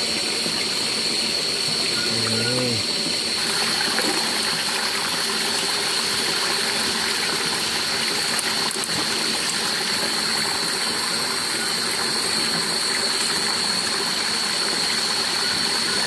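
Steady rushing of a small forest stream over rocks, with a continuous high-pitched tone running over it.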